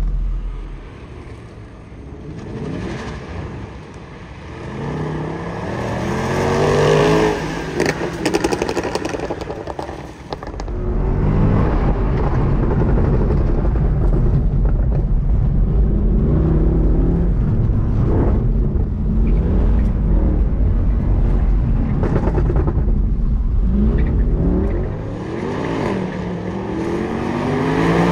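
Mercedes-Benz C63 AMG's 6.2-litre V8 on a hard autocross run, revving up and dropping back again and again as it accelerates between tight corners and brakes into them. A heavy low rumble runs from about ten seconds in until shortly before the end.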